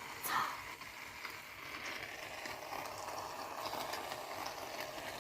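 Aerosol can of shaving cream dispensing foam: a faint, steady crackling hiss, after a short burst about a third of a second in.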